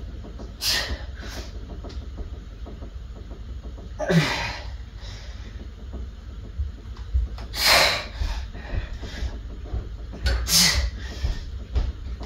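A man's forceful exhalations under effort: sharp puffs of breath about every three seconds, a couple with a short grunt, each on the push of a weighted rep.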